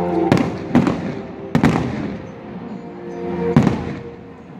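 Aerial fireworks shells bursting: four sharp bangs, three in the first two seconds and the loudest near the end, over music playing in the background.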